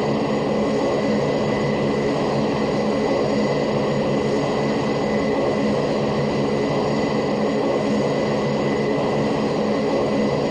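Steady droning of a laboratory machine that sounds like an airplane: a continuous hum with several fixed low tones and a constant high whine, unchanging throughout.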